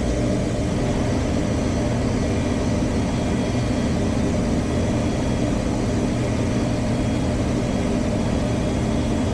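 A Goodman gas furnace running after its gas valve replacement: a steady low mechanical hum with a rushing airflow noise. It includes the inducer motor, which the technician says is overamping and sounding really loud, a sign that it is close to failing.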